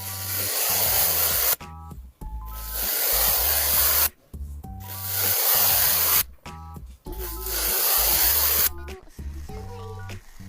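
Four long stretches of loud hissing, each swelling and then cutting off suddenly, between short stretches of background music with a steady bass.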